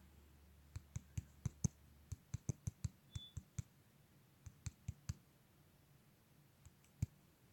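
Faint, sharp clicks or taps at irregular spacing, about twenty in all: a dense run in the first five seconds, then a lone click near the end.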